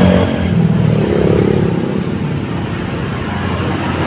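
Motor vehicle engine noise from passing road traffic, loudest at the start and easing off within the first second, then a steady traffic hum.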